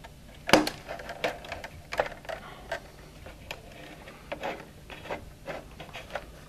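Irregular clicks and light rattles of thin wires being pulled through a plastic Irritrol irrigation-controller housing and handled against it, the sharpest click about half a second in.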